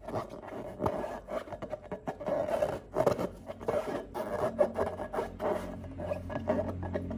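Close, quick rubbing and scraping sounds, a rapid run of short strokes that starts suddenly. A steady low hum joins about halfway through.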